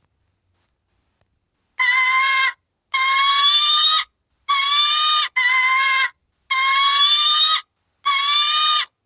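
A bird calling six times, starting about two seconds in. Each call is a drawn-out, even-pitched cry lasting up to about a second, rising slightly in pitch toward its end.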